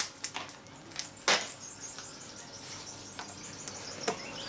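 A few sharp clicks and knocks from hands working on motorcycle wiring and fittings, the loudest about a second in. A faint high chirping runs under it.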